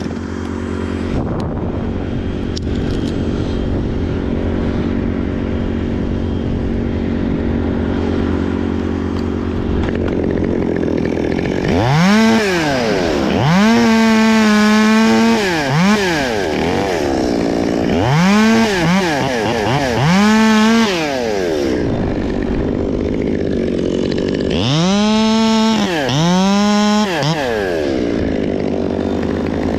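Chainsaw idling steadily, then throttled up several times from about twelve seconds in. Each burst rises to high revs, holds for a second or two and drops back to idle. A steady low engine hum runs underneath.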